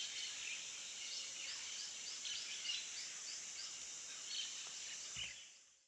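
Outdoor ambience of a steady high insect drone, with a bird calling a quick run of about ten short, falling high notes. It fades out near the end.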